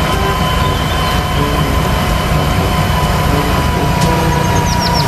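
Tractor-mounted snow blower running steadily over the rumble of diesel engines as it throws snow into a dump truck, with a steady high hum on top. A few short high chirps come near the end.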